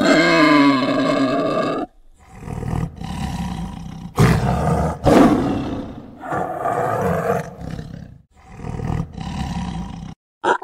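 White tiger roaring and snarling in a string of loud, rough calls with short gaps between them, the sharpest about four and five seconds in. A drawn-out pitched call with a wavering pitch comes first, for about two seconds.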